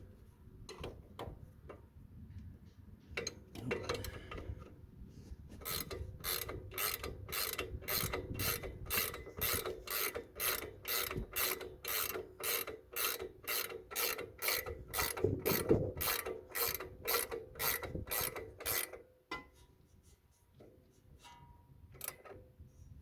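Hand ratchet wrench clicking steadily as it tightens a nut, about two to three clicks a second for some thirteen seconds, after a few scattered clicks, then it stops.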